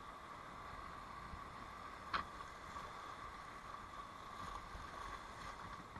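Faint, steady rushing of whitewater in a big river rapid, with a single sharp knock about two seconds in.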